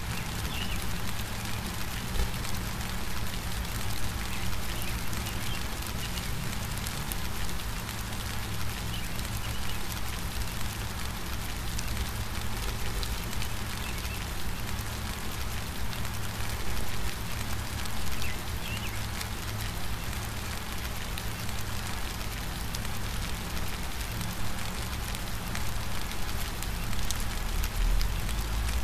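Steady rain falling, an even patter of drops over a low rumble.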